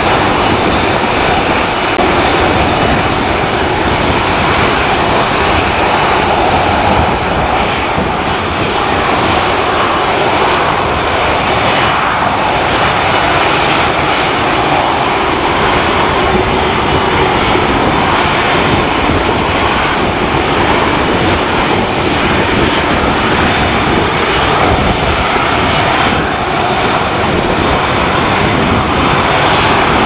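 Turboprop airliner taking off and climbing away, its engines and propellers running at take-off power in a steady loud drone. Gusty wind buffets the microphone throughout.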